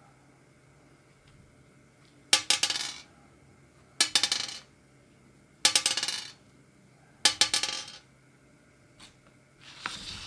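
Fingerboard on hard maple wheels clattering loudly on a hard surface: four short runs of rapid ticks, each starting with a sharp hit, about every second and a half, and a softer one near the end.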